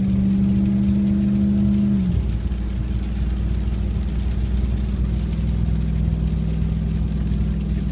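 Vehicle engine and tyre noise on a wet road heard inside the cab while driving and towing a pop-up camper; the engine's steady hum drops slightly in pitch about two seconds in, then runs on as a low steady drone.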